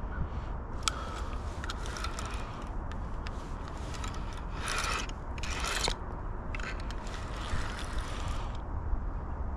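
Fishing reel being cranked: a clicking, ratcheting mechanism with scraping rasps that come and go, the busiest stretch about halfway through, over low wind rumble on the microphone.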